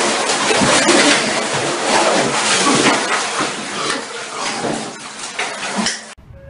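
Water running and splashing in a shower, loud and irregular, cutting off abruptly near the end.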